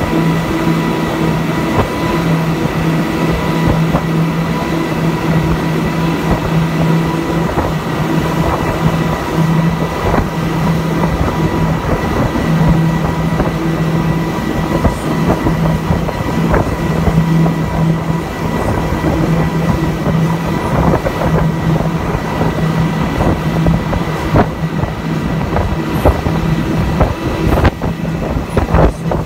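Four Mercury 300 hp four-stroke outboard motors running together at high speed: a steady drone of unchanging pitch over the rush of water past the hull, with a few sharp knocks near the end.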